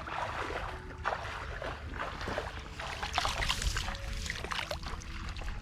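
Water splashing and sloshing in irregular surges, loudest a few seconds in, over a steady low rumble.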